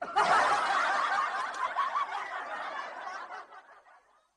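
Several people laughing together, starting suddenly and fading away over about four seconds.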